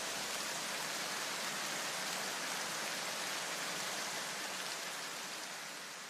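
A steady rain-like hiss of noise with no distinct calls or beats, slowly fading near the end.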